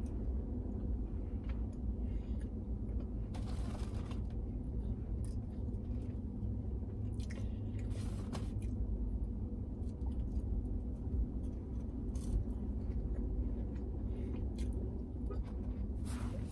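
A person eating a Raising Cane's meal: chewing, with crunchy bites now and then, over a steady low hum.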